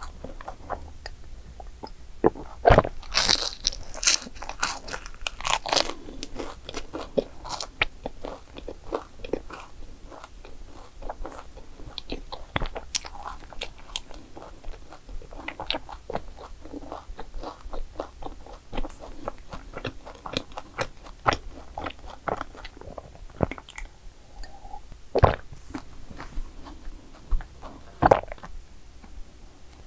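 Close-miked crunching and chewing of a crisp croffle, a croissant-dough waffle: a steady run of small crackly crunches, with a few louder bites about three seconds in and twice near the end.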